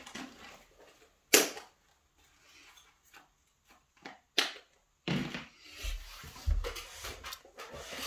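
Small tools being rummaged through and handled on a tabletop in search of a lock-gutting tool: a few sharp clicks and knocks, then a stretch of clattering and rustling with low thuds from about halfway through.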